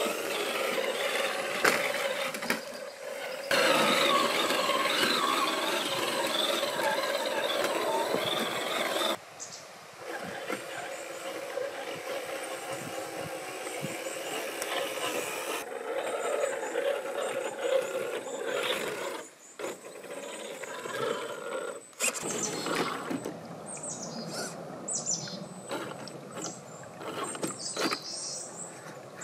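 Whine of a 1/8-scale RC crawler's brushed 550 electric motor and geared drivetrain, rising and falling with the throttle as it climbs over rock. Short knocks and scrapes come in the last few seconds.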